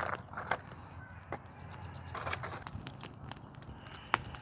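Campfire crackling: scattered small clicks from the burning wood, with one sharp pop about four seconds in.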